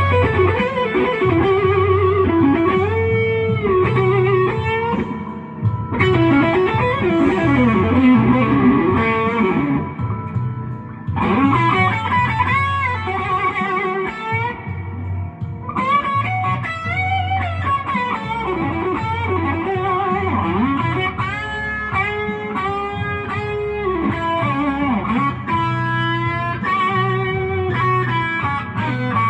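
Electric guitar playing a slow blues solo over a bass line, with many bent notes and wide vibrato on held notes, broken by a few short pauses between phrases.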